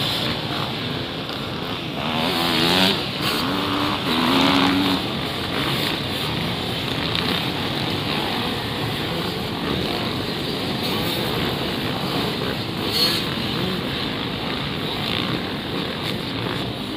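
A pack of motocross dirt bikes accelerating away from a mass start, many engines revving at once. About two to five seconds in, single bikes stand out, rising and falling in pitch through gear changes, over a dense blend of engines that grows slightly fainter toward the end.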